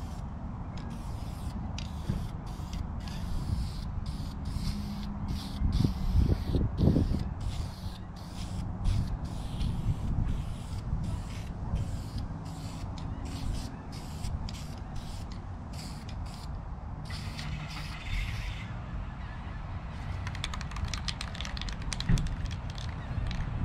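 Aerosol spray-paint can hissing in repeated short bursts as a plastic car door panel is painted, with wind rumbling on the microphone.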